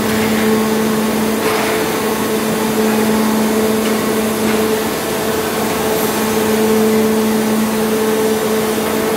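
Steady hum of an electric machine such as a motor or fan, a low droning tone with a second tone an octave above it, running unchanged throughout.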